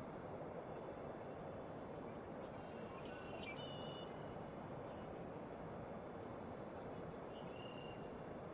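Faint outdoor ambience: a steady rushing hiss with a few short, high bird calls about three seconds in and again near the end.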